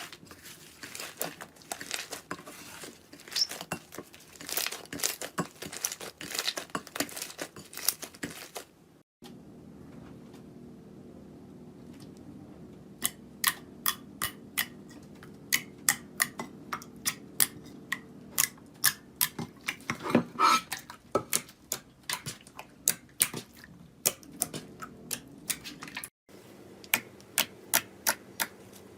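Slime being squeezed and worked by hand: a dense crackling for about nine seconds, then, after a cut, a run of sharp separate clicks and pops, several a second.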